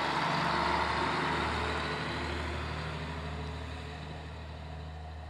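Kiha 54 diesel railcar pulling away, its engine's steady low drone and running noise fading as it leaves.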